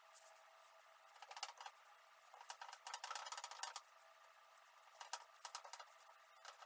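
Faint rustling and light clicking of yufka dough wrapped on a long thin wooden rolling pin (oklava) being rolled under the palms on a floured counter. The sounds come in a few short clusters: one about a second and a half in, a longer stretch in the middle, and another about five seconds in.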